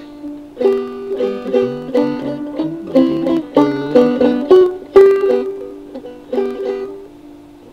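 Old Encore open-back banjo with a wooden rim and Remo Weather King head, plucked in a loose run of notes and chords by a learner. It starts about half a second in and dies away near the end.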